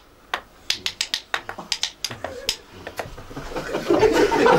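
Wooden spoons clacked together in quick, irregular clicks, often in pairs, imitating the clattering beak of a stork in a folk game. Murmuring voices rise near the end.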